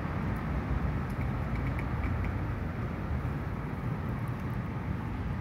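Steady road traffic: the low rumble of engines and tyres from cars on a busy street.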